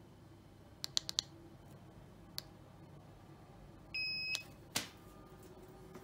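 Xiaomi M365 scooter power button clicking, four quick presses and then one more, followed about four seconds in by one short beep from the dashboard and a knock. The button and dashboard are responding again after corrosion was cleaned from the button.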